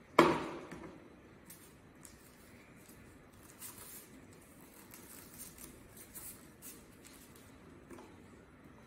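A single sharp knock on the desk just after the start, then soft, scattered scratching and rustling as a glued thermocol cut-out is pressed and rubbed down onto a paper sheet, with a small click near the end.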